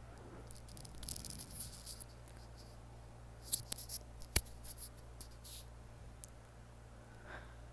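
Faint scattered rustles and clicks over a low steady hum, with one sharp click about four and a half seconds in.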